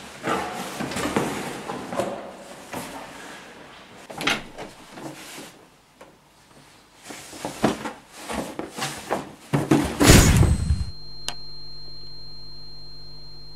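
Cardboard box being handled and opened, with irregular rustling and knocks of the flaps. About ten seconds in comes a loud burst, then a steady humming tone that slowly fades: a transformation sound effect.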